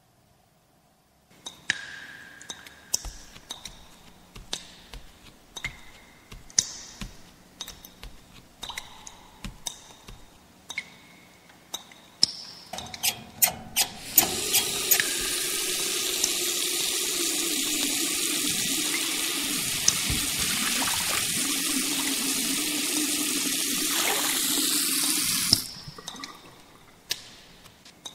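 Water running steadily for about eleven seconds and cutting off suddenly, after a string of sharp clicks and knocks. A few more clicks follow it.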